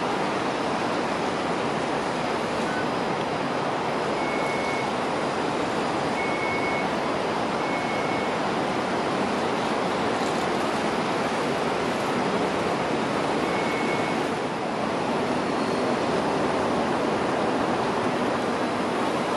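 Steady rushing outdoor background noise with no distinct event, and a few short high chirps scattered through it.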